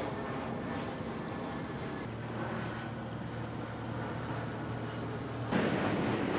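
Steady outdoor background with a low hum, then about five and a half seconds in the loud, steady rushing noise of a jet airliner passing low overhead cuts in suddenly.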